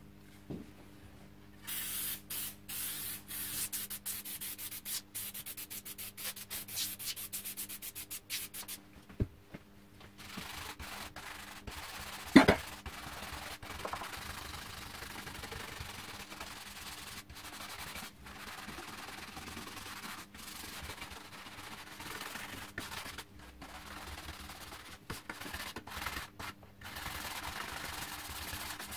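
Brisk hand scrubbing along an old smoothbore caplock musket's barrel and fittings, quick back-and-forth strokes several a second with a bright, scratchy hiss, then slower steady rubbing. One sharp knock about twelve seconds in.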